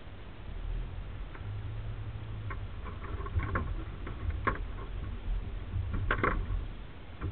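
Low, steady engine rumble of a four-wheel-drive vehicle crawling slowly over a rough trail, heard from inside the cab. Scattered knocks and rattles come from the vehicle jolting over the uneven ground, loudest about six seconds in.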